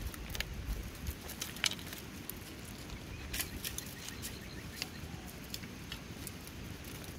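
Puppies rummaging with their heads inside a wicker basket on pebbles: scattered, irregular small clicks, scratches and rustles of wicker, paws and stones.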